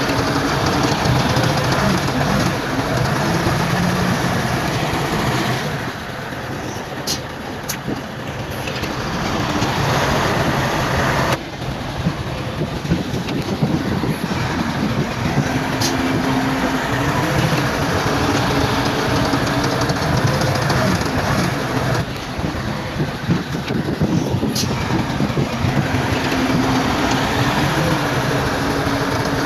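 Bulldozer's diesel engine running hard under load, with a few sharp metallic clanks. The sound changes abruptly twice.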